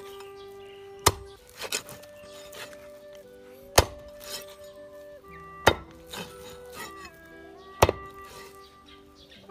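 A cleaver chopping a pig's trotter through bone on a wooden chopping block: four heavy chops about two seconds apart, with a lighter one just after the first, over background music.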